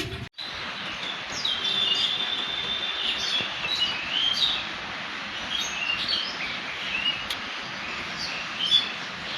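Birds chirping in short, scattered calls, with one longer held whistle early on, over a steady outdoor background hiss.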